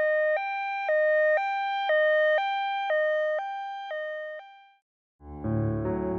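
A two-tone hi-lo siren, alternating between a higher and a lower note about once a second and fading away over about four seconds. After a brief gap, soft piano music begins near the end.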